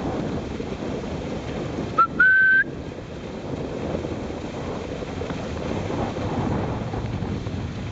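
Steady rush of a dog sled gliding over packed snow, with wind on the microphone. About two seconds in, a loud whistle: a quick chirp, then a held note of about half a second that rises slightly.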